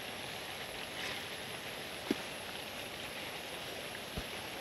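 A steady hiss with a thin high whine over it, and two light knocks about two and four seconds in.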